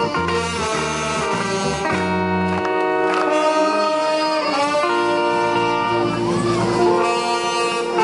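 A municipal wind band of saxophones, trumpets and trombones playing a tune, with held horn notes over a stepping bass line in the first two seconds.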